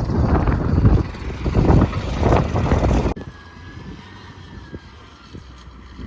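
Gusting wind buffeting the microphone in a snowstorm, in loud irregular surges, cut off abruptly about three seconds in; after it comes a much quieter steady low rumble.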